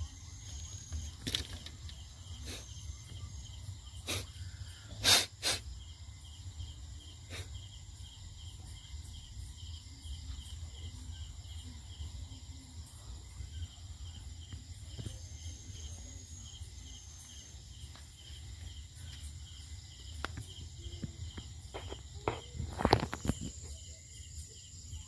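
Night insects chirping steadily in a high, evenly pulsing drone over a low rumble. Several sharp taps cut through it, the loudest pair about five seconds in and a cluster near the end.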